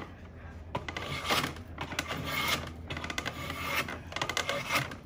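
Drawknife shaving an Osage orange bow stave, roughing out a self bow: a run of scraping pulls that starts about a second in, roughly one pull a second.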